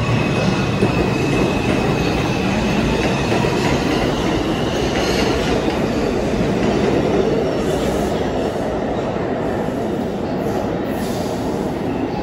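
New York City Subway train of R142-type cars running on the rails: a loud, steady rumble of wheels and motors, with a few faint high wheel squeals near the end.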